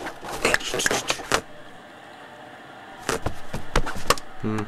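Cartoon sound effects of a cat's claws scratching at a fabric sofa arm in a quick cluster of rasps. After a pause comes a run of sharp taps and knocks as the cat scrambles up and a small object drops to the floor, then a brief low vocal sound near the end.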